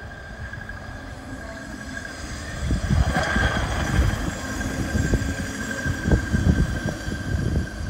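Hi-rail pickup truck rolling along the railroad track past the crossing. A low rumble with irregular knocks builds about two and a half seconds in and stays loud as it passes.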